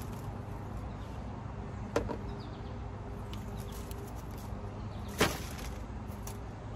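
Digging in soil in a plastic plant pot with a metal hand trowel: two sharp knocks, one about two seconds in and a louder one about three seconds later, over a steady low background rumble.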